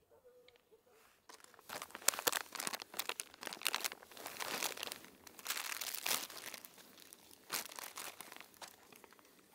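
Thin clear plastic food bag crinkling and rustling as it is handled, starting about a second in.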